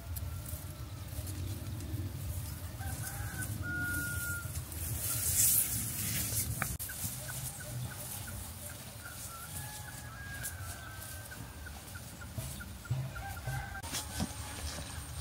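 Chickens clucking and calling in short, repeated pitched notes, with a brief rush of noise about five seconds in that is the loudest moment.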